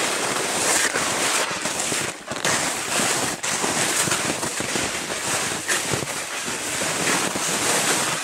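Footsteps crunching through frozen snow, a dense, unbroken run of crackling crunches as someone walks.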